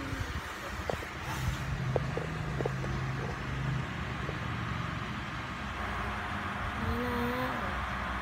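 Steady low background rumble, engine-like, with a few sharp clicks and knocks in the first few seconds and a brief wavering pitched sound near the end.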